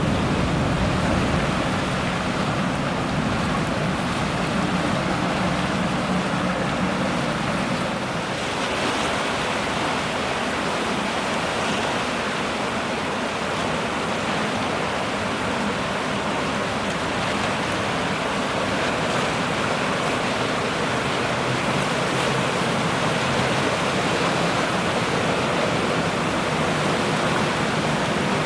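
Steady outdoor rushing noise of wind and water at a shoreline, with no distinct events; the background changes character about eight seconds in, losing some of its low rumble.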